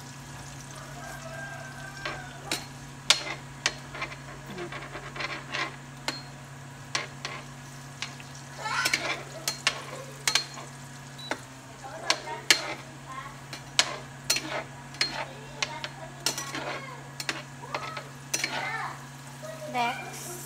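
Vegetables sizzling in a frying pan while a spoon stirs them, knocking and scraping against the pan in many short, sharp clicks. A steady low hum runs underneath.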